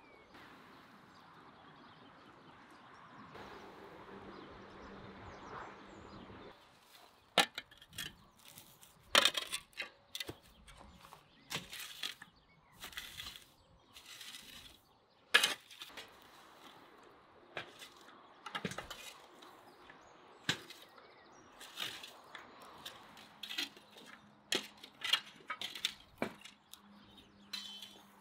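Spades scraping through ash and burnt straw and knocking against the upturned metal buckets of a chicken-under-bucket fire, as the embers are cleared off. Irregular sharp scrapes and clinks, one or two a second, begin about seven seconds in after a few seconds of quiet background noise.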